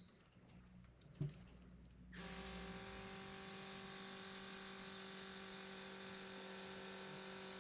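Cordless airbrush starting about two seconds in and running steadily: the hum of its small built-in compressor motor with a hiss of air as it sprays a layer of UV gel polish onto the tip of a nail.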